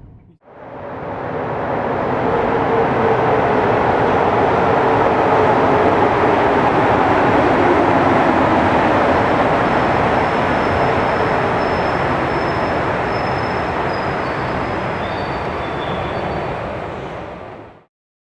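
Train running on rails: a steady rumble of wheels on track that builds up over the first two seconds, holds, and cuts off suddenly near the end.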